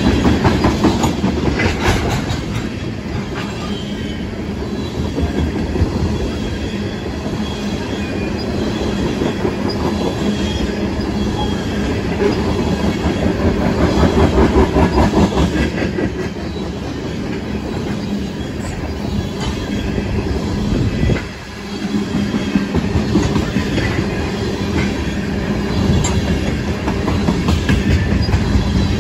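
Tank cars of a freight train rolling past close by: a steady rumble of steel wheels on rail with a rhythmic clickety-clack over the rail joints and light wheel squeal at times. The noise dips briefly about three-quarters of the way through.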